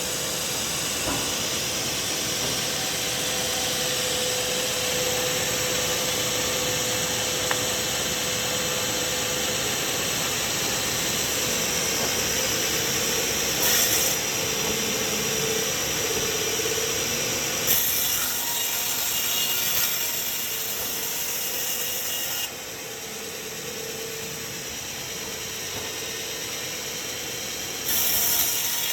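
Sawmill saw cutting through a log: a steady, loud, hissing-rasping noise that changes abruptly in level and tone several times.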